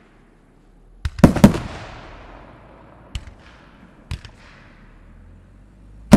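Aerial fireworks bursting: a cluster of three sharp bangs about a second in, trailing off, lighter single reports around three and four seconds in, and another loud bang at the very end.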